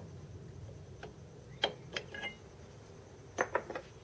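Light metallic clicks and taps from hand tools and parts being handled at a small metal lathe. There is one a little over a second and a half in, a couple more soon after, and a quick run of three near the end, over a faint low hum.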